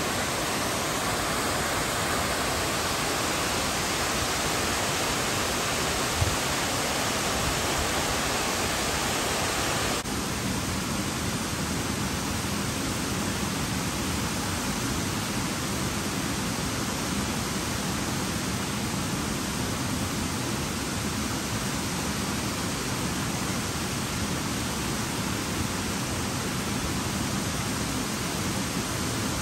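Waterfall pouring over rock ledges into a pool: a steady rushing. About ten seconds in it turns slightly quieter and duller.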